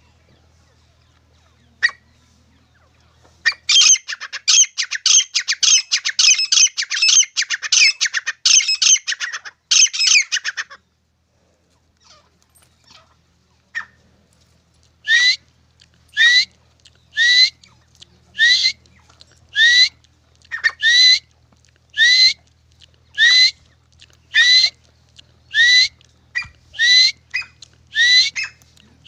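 Grey francolins (desi titar) calling: a dense rapid chatter for about seven seconds, then, after a short pause, a long run of loud separate calls repeated about once a second, each ending on a rising note.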